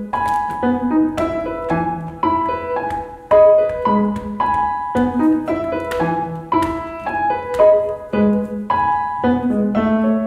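Background piano music: a light melody of struck notes, a few each second.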